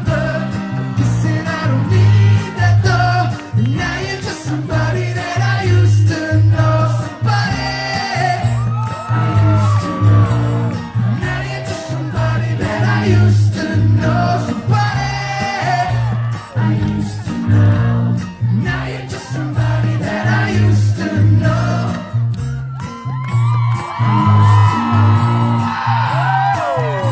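Live band playing a pop song in a large hall: singing over a steady pulsing bass beat. Near the end, many high voices in the crowd whoop and cheer over the music.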